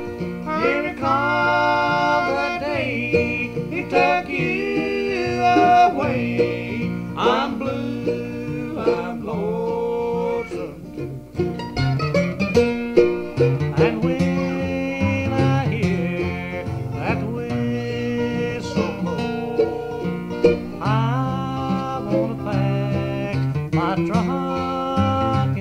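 Country-bluegrass instrumental break: plucked string instruments picking a melody over a steady rhythm.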